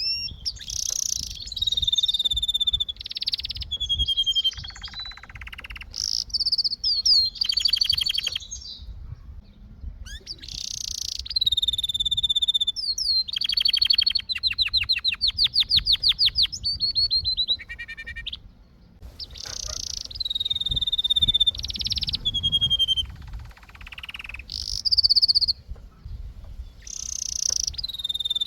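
Domestic canary singing: a varied song of clear whistled notes and fast rolling trills of rapidly repeated notes, in phrases broken by short pauses.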